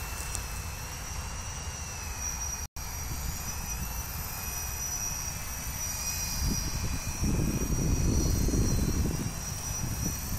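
Electric multirotor drone flying close by: a steady high whine of its motors and propellers, the pitch wavering a little as it manoeuvres. A low rumble swells up in the last few seconds.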